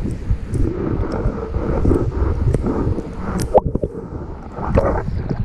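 Muffled underwater sound of shallow sea water heard through a submerged action camera: a low, churning rumble with scattered sharp clicks and pops.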